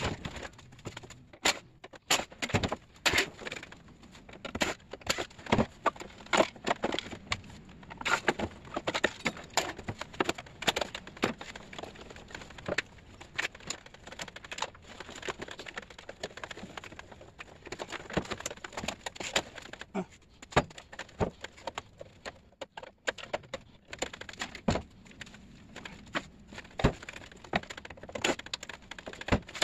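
Irregular sharp knocks, clanks and cracks of a window air conditioner being taken apart by hand for scrap, with parts struck and broken loose, sometimes several a second.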